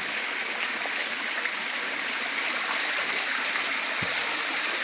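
Steady rush of flowing water, with a faint low thump about four seconds in.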